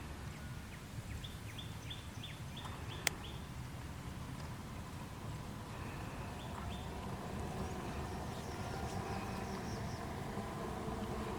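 A bird chirping in a quick run of short falling notes, about four a second, with a few more chirps later, over a steady low rumble of outdoor noise. A single sharp click sounds about three seconds in.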